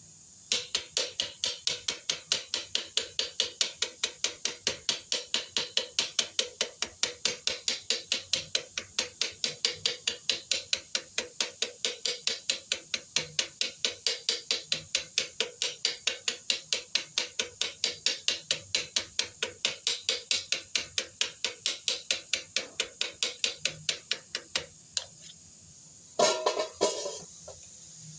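Rapid, even tapping, about four strokes a second, that keeps a steady pace and then stops; a short, louder clatter follows near the end.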